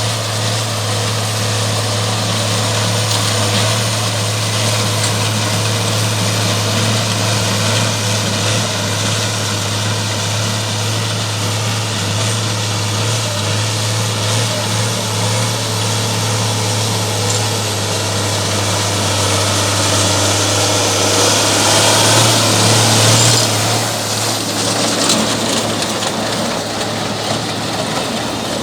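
IHC 1246 tractor's diesel engine, modified to about 170 hp, running steadily while hauling silage. It swells a little louder a little over 20 seconds in, then eases back.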